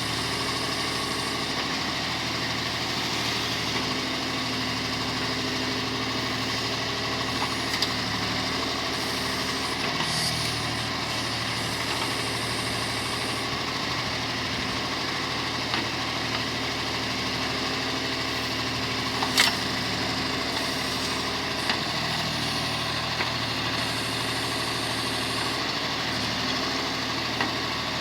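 John Deere 5310 tractor's diesel engine running steadily while powering a backhoe, its pitch shifting slightly now and then. A few short sharp clicks or knocks sound over it, the loudest about two-thirds of the way through.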